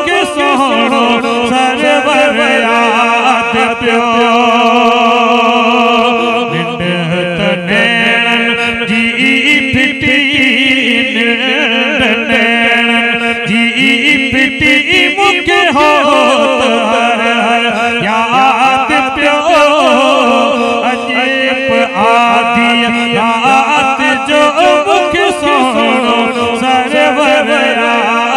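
A man singing a Sindhi molud, a devotional praise song, into a microphone. He holds long, ornamented notes over a steady low drone.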